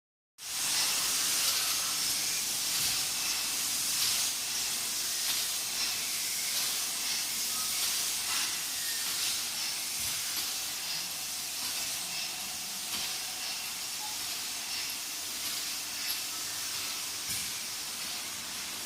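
Automatic bottle filling and capping machine running: a steady hiss with faint clicks, starting about half a second in.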